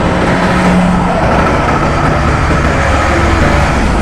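Diesel semi-truck pulling a loaded tanker trailer, its engine running loud and steady as it drives past.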